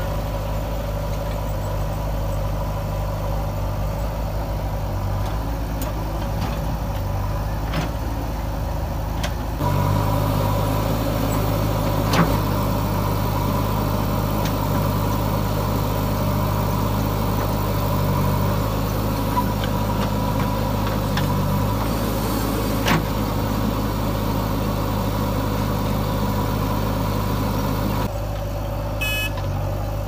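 Diesel engine of a JCB 3DX backhoe loader running steadily, the tractor's engine alongside it. About ten seconds in the engine note gets louder and heavier and stays so until near the end, with a few knocks along the way.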